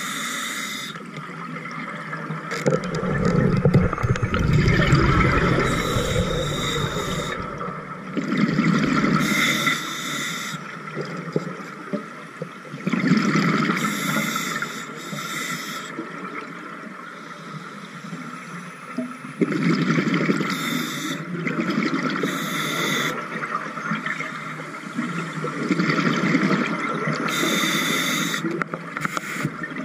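Scuba diver breathing through a regulator underwater. Each breath gives a short hiss on the inhale, then a longer bubbling rush on the exhale, about five breaths over the stretch.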